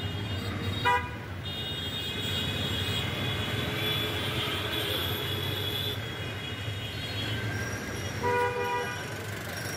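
Vehicle horns in street traffic: a short loud toot about a second in and another near the end, with a higher tone held for several seconds between them. Under it runs the steady hum of a car's engine passing close by.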